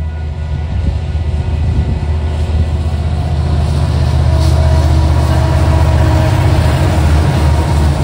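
Union Pacific EMD SD59MX diesel locomotives rolling up to and into a grade crossing. A heavy low engine rumble grows louder over the first few seconds and then holds, while the hiss of wheels on rail builds as the lead units reach the crossing.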